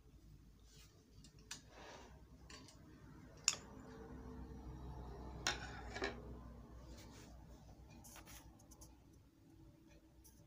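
Faint metallic clicks and taps of sewing-machine parts being handled as a part is worked loose and taken off, about half a dozen separate ticks over a low steady hum.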